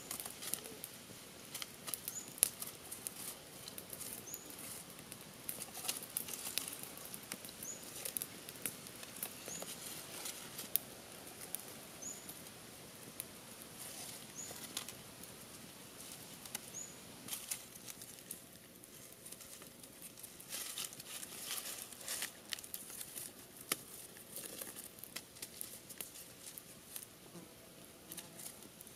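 Dry vine rope and a thin bamboo strip rustling and ticking as they are handled, twisted and knotted, with light crackles of dry leaf litter underfoot. A short, high call repeats faintly about every two seconds through the first half.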